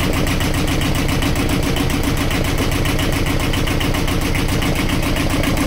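Universal 5411 two-cylinder marine diesel engine idling steadily, heard up close in its open engine compartment. Its firing strokes make a fine, even pulse throughout.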